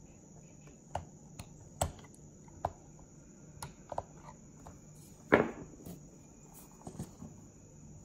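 Screwdriver tip ticking and scraping in the contact holes of a TI-84 Plus calculator's battery compartment, nudging the battery contact wires back onto their metal plates to get the calculator to power on. Scattered light ticks, with a louder knock about five seconds in, over a faint steady high whine.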